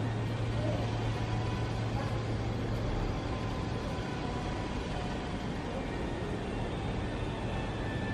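Steady road-traffic noise with a low hum that fades out over the first three seconds.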